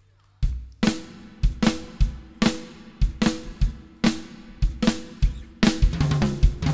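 Live rock drum kit starting a song about half a second in: a steady beat of bass drum and snare hits with ringing cymbals.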